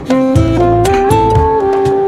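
Instrumental background music: a held melody line stepping up and down over bass notes and a regular beat.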